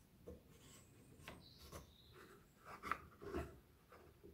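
Faint wood-on-wood rubbing and a few light knocks from a small wooden test piece worked between the clamped parts of a tenon jig, trying how firmly it is gripped. The loudest knocks come about three seconds in.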